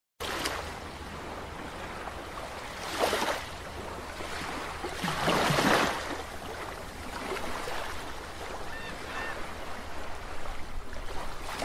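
Underwater rushing-water sound effect for an animated logo, a steady watery hiss with two swelling whooshes, about three seconds and five to six seconds in.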